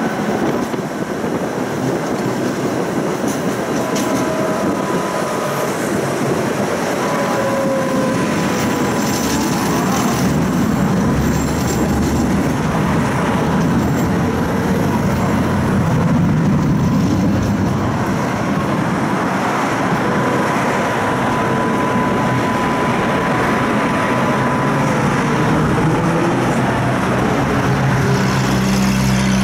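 Tram running on its rails, heard on board: a steady rumble of wheels on track with a faint whine that glides up and down in pitch, and a low hum growing stronger near the end.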